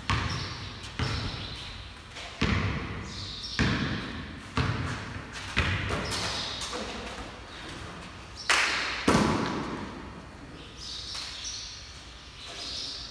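A basketball bouncing and thudding on a bare concrete floor during play, a string of irregular dribbles and hits that echo in the large empty garage; the two loudest thuds come close together about two-thirds of the way through.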